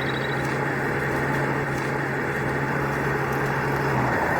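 A vehicle engine running steadily, with a low hum that cuts off about four seconds in.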